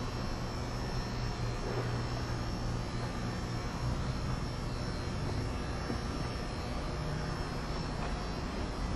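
Steady low mechanical hum and rumble, even throughout, with no sudden sounds.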